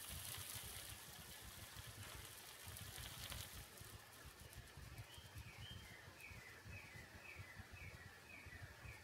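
Very faint sound: a soft hiss over the first few seconds, then a bird chirping in the background, about two short falling chirps a second through the second half.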